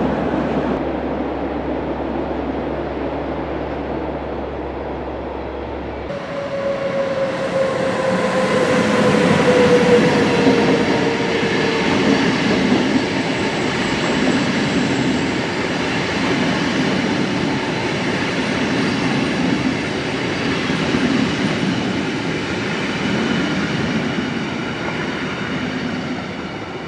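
Recorded sound of a real train running on rails, laid over the model railway, with continuous wheel and rail rumble. About six seconds in, the sound changes as a louder stretch begins, with a whine falling in pitch over several seconds and then steady high-pitched wheel or motor tones.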